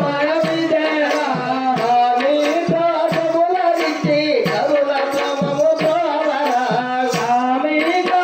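Devotional bhajan singing, a wavering melodic line carried over a drum beating roughly two strokes a second, with sharp percussive clicks among the beats.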